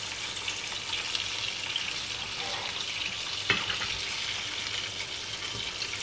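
Hot oil sizzling in a frying pan around fried blue whiting, the hob already switched off, while the fish are lifted out with metal tongs. Small clicks run through it, with one sharp click about three and a half seconds in.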